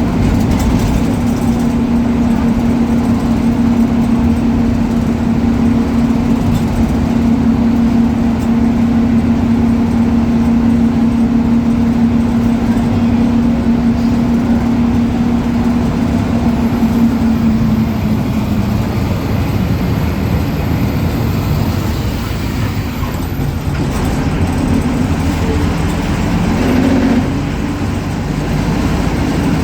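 Ashok Leyland BS4 bus diesel engine running steadily with a strong even drone that fades out about two-thirds of the way through as the engine note changes. A faint high turbo whistle rises slightly in the latter half.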